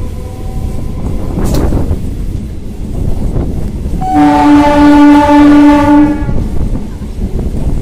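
MEMU electric train running, with rumbling wheel and track noise throughout. About four seconds in, the train's horn sounds one steady blast of about two seconds, the loudest sound here.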